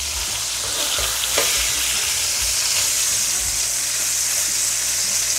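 Ribeye steaks sizzling in bubbling butter and rendered fat in a cast iron pan: a steady frying hiss that grows a little louder about a second in.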